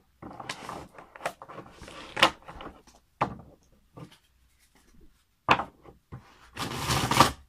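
Tarot cards being shuffled by hand: a run of papery slides and sharp taps of cards, with a longer rush of shuffling near the end.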